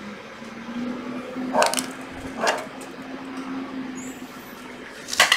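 A felt-tip marker squeaks across the plastic housing of a cordless circular saw in two short strokes. Hard plastic knocks and clunks near the end as the saw is handled.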